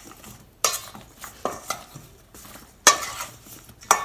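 Metal spoon stirring oiled raw potato wedges in a stainless steel bowl: irregular scraping and clinking strokes against the bowl, the loudest about three seconds in.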